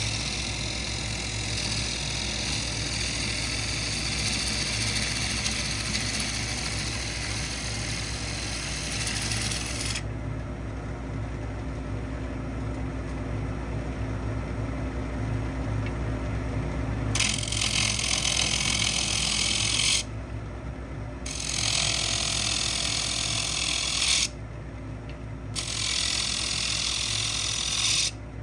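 Wood lathe running with a steady low hum while a tool scrapes the spinning pecan with a loud hiss. The hiss drops out for about seven seconds in the middle, leaving only the lathe, then comes back in stretches with two short breaks near the end.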